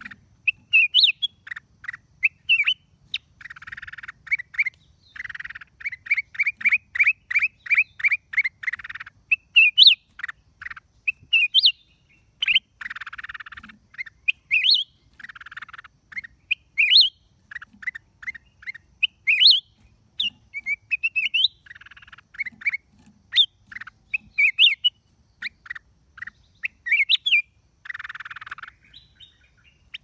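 Black-crested bulbul calling: short, sharp upward-sweeping whistled notes, a run of quick clipped notes about four a second early on, and several harsh raspy bursts scattered between them.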